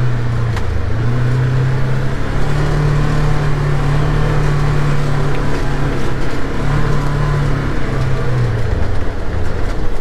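Farm vehicle's engine running steadily, heard from inside the cab. Its deep hum rises in pitch a little after two seconds in, dips briefly, and drops back down near the end as the engine speed changes.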